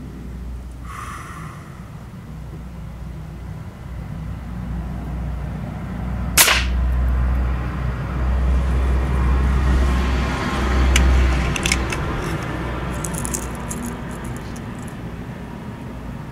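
A single shot from an RWS Diana 34 .177 spring-piston break-barrel air rifle, one sharp crack about six seconds in. A low rumble swells under it for several seconds, and a few faint clicks follow near the end.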